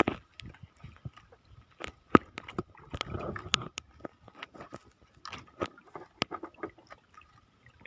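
Irregular sharp clicks and knocks, like close handling of gear, with a short scuffing patch about three seconds in.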